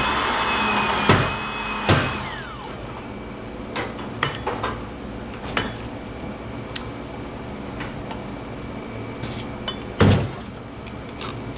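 An electric power tool's high-pitched motor running, then spinning down with a falling whine about two seconds in. Heavy metal clanks come about a second in, near two seconds and near the end, with scattered lighter clicks and knocks over a low steady hum.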